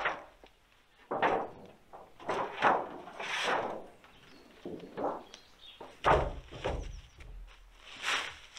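Flat sheets being handled and laid onto a tarpaulin-covered dugout roof: a run of short rustling scrapes and knocks, with a dull thump about six seconds in.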